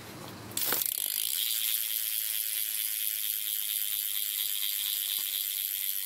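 Shadow BTR rear hub on a BMX bike freewheeling as the back wheel is spun, its pawls giving a fast, steady, high-pitched ratcheting buzz that starts about half a second in.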